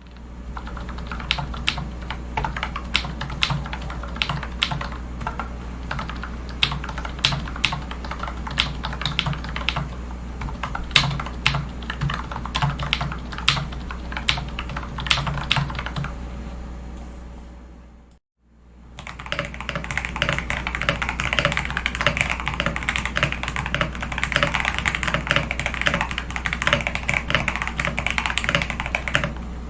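Typing on a computer keyboard: a run of separate keystrokes, then a brief gap about two-thirds of the way in, after which the typing is faster and denser, with a brighter clatter. A steady low hum lies underneath.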